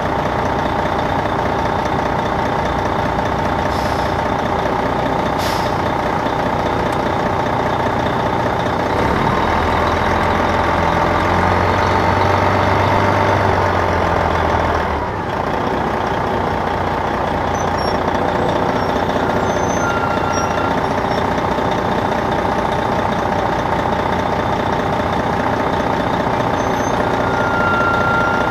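Detroit Diesel Series 60 diesel engine of a 2002 MCI D4000 bus running while the bus is under way, heard from inside the rear of the bus near the engine. The engine gets louder and deeper about a third of the way in, drops off briefly about halfway through, then runs on steadily.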